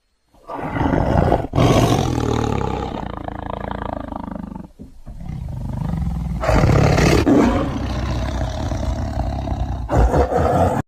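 Tiger snoring: a deep, rumbling sound in two long stretches, the first about four seconds and the second about six, which cuts off suddenly at the end.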